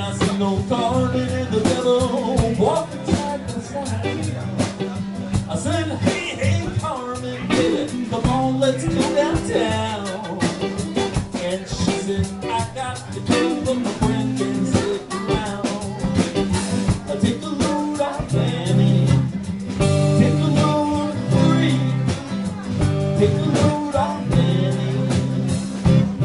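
Live blues band playing an instrumental break, with a harmonica leading over acoustic guitar, electric guitar and a drum kit.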